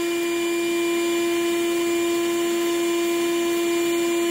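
Small shop vac running steadily with an even whine, pulling vacuum through an engine's intake manifold and port.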